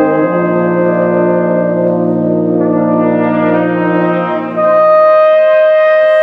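Wind band playing sustained chords, brass to the fore. About four and a half seconds in the low notes drop out and a louder, higher chord enters.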